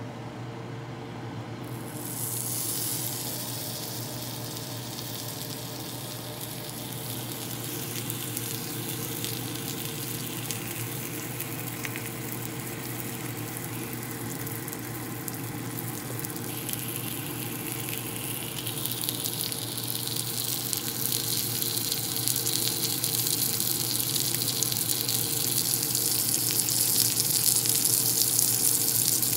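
A small piece of bacon sizzling in a nonstick frying pan. The sizzle starts about two seconds in as the bacon hits the hot pan and grows steadily louder as it cooks, over a steady low hum.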